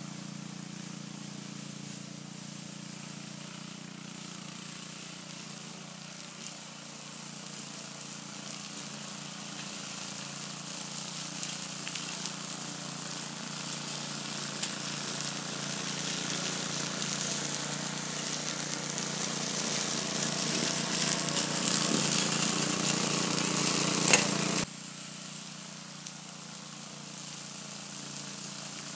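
Old walk-behind rotary lawn mower's small engine running steadily while cutting grass. It grows louder as the mower comes closer, then drops off suddenly about three-quarters of the way through.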